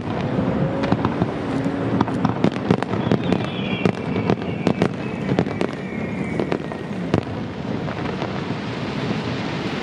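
Aerial firework shells bursting: a rapid string of sharp cracks and bangs over a steady background noise, thinning out after about seven seconds.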